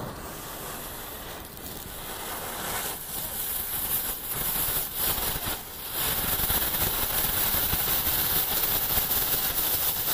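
Firework fountain (anar) spraying sparks with a hiss, uneven at first, then steady and louder from about six seconds in.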